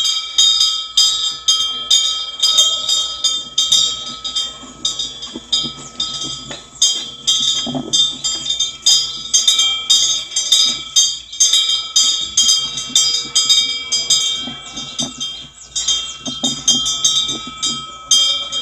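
Korean temple wind bell (pungyeong), a small metal bell with a fish-shaped vane, swinging in the wind. Its clapper strikes it irregularly, several times a second, and the overlapping ringing tones never die away.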